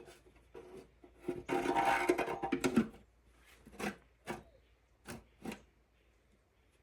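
Band clamp being tightened on a new air filter: a rasping, rubbing stretch of about a second and a half, then a few short clicks.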